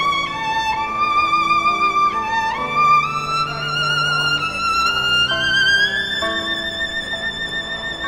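Background score: a slow violin melody with vibrato that climbs step by step to a long held note, over a soft, low sustained accompaniment.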